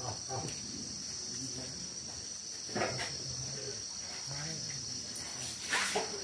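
Steady high-pitched insect chorus, an unbroken buzz. Two brief knocks or rustles stand out above it, about three seconds in and again near the end.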